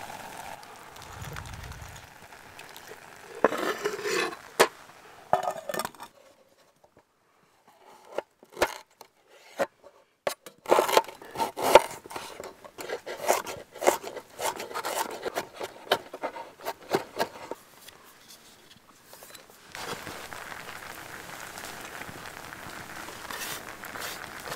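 Knife chopping fresh ginger on a cutting board: a long run of quick, uneven taps. Before it come a few scrapes and knocks of the board against the pot, and a steady outdoor background hiss follows near the end.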